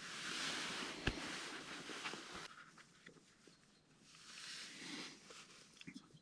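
Faint rustling in two spells of a second or two each, with a few light clicks and taps.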